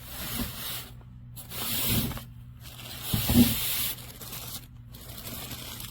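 Protective wrapping being handled and pulled on a packaged item: rustling and tearing, louder in two stretches about two and three seconds in.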